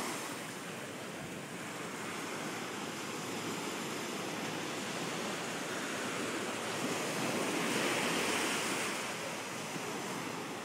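Ocean surf washing in steadily, swelling a little louder about two-thirds of the way through as a wave comes in.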